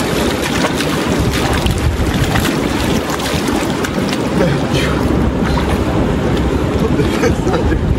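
Shallow mountain river rushing over rocks, with repeated splashing as bathers throw water over themselves and move about in it.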